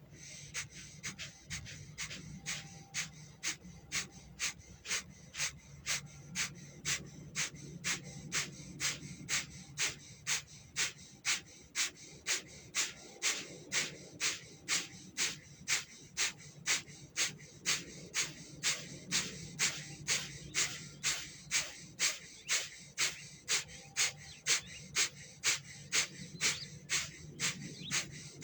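Bhastrika (bellows breath) pranayama: a long, steady run of rapid, forceful breaths, evenly paced at a little under two a second.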